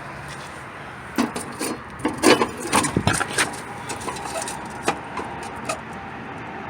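A quick run of knocks and clatters in the first half, then a few single clicks, over a steady background hum.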